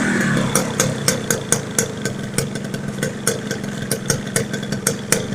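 Yamaha RX-King's 2008 two-stroke single-cylinder engine dropping back from revs in the first half second to an uneven idle, with irregular sharp ticks and knocks a few times a second. This rough running is the 'ngorok' (snoring) engine noise the owner is showing.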